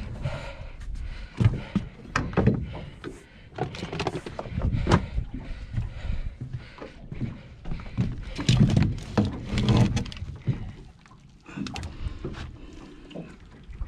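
Irregular knocks and thuds against the deck and hull of a small fishing boat, some sharp and some dull, over a low rumble, easing off briefly about two-thirds of the way through.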